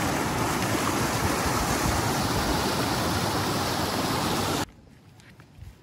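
Water rushing over a small rocky cascade in a river, a loud steady rush that cuts off abruptly about four and a half seconds in. After it there is quiet with a few faint clicks.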